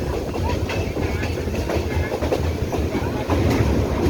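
Express passenger train running along the track, a steady low rumble with the wheels clicking over rail joints; the rumble grows louder about three seconds in.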